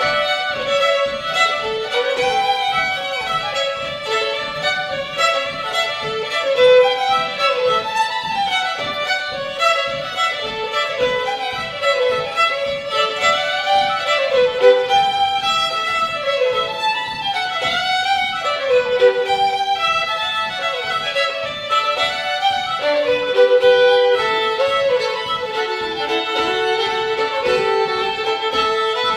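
Two fiddles playing a fast French-Canadian fiddle tune together, in quick running notes.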